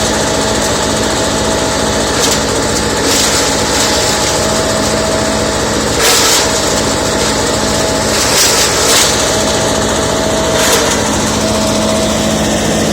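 Mobile leaf-and-branch chopping machine driven by a 22 HP diesel engine, running steadily with a steady tone over the engine. About five short bursts of louder hissing noise break in along the way.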